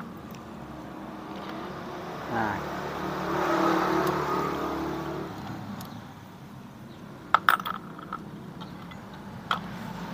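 A motor vehicle's engine passes, swelling to a peak near the middle and fading. Sharp metallic clinks from small steel engine parts being handled at an opened motorcycle crankcase: a quick cluster about three-quarters through, the loudest sound, and one more near the end.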